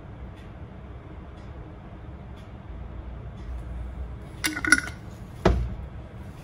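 Low steady background hum, then a short clatter of clinks about four and a half seconds in and a single dull knock a second later: tableware and a sauce bottle being handled and set down on a kitchen counter.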